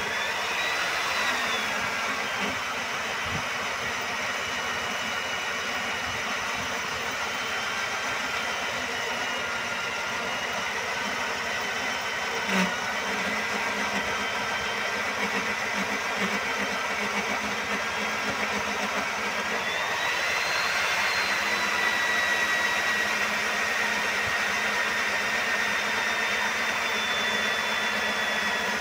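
Rig-mounted electric diamond core drill running as its water-fed core bit cuts into a concrete slab, its motor giving a steady whine. The whine rises in pitch about twenty seconds in and then slowly sinks, and there is one sharp click near the middle.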